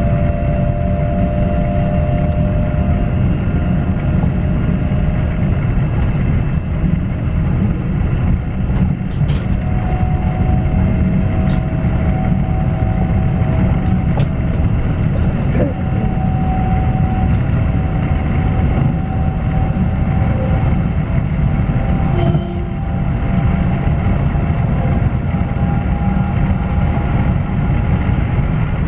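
Inside a Pesa Dart ED161 electric multiple unit running at speed: a steady rumble of wheels on rail, with the traction inverters' steady whine on top, a little higher in pitch from about ten seconds in. A few sharp clicks come through.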